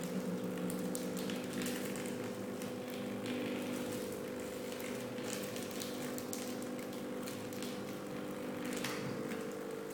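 Thermal tattoo stencil copier running mid-copy: a steady motor hum while the stencil sheet is drawn through, with light crackling and crinkling of the transfer paper.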